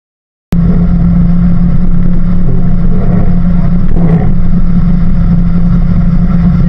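Boat's outboard motor running steadily at speed, a loud constant drone with a low hum, starting suddenly about half a second in.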